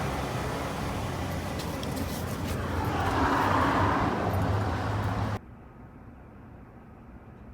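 Motor vehicle noise with a steady low hum that swells around three seconds in, then cuts off abruptly about five seconds in to quiet room tone.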